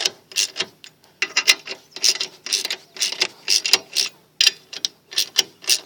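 Socket ratchet clicking in repeated short bursts of strokes as M8 bolts are wound into the threaded puller holes of a rusted-on rear brake drum, pushing the drum off the hub.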